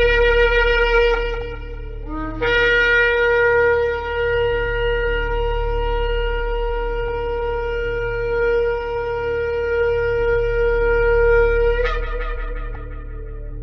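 Shofar (ram's horn) blown: a short blast, a brief lower note, then one long, steady held note of about nine seconds that breaks off near the end and fades with some echo. A low steady hum runs underneath.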